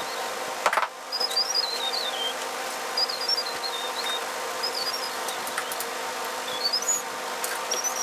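A bird singing short warbling phrases every second or two over a steady hum, with a brief click about a second in.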